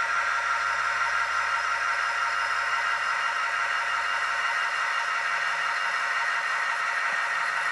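HO scale SD70 model locomotive's DCC sound decoder playing a steady diesel engine sound through its small onboard speaker, under a constant hiss.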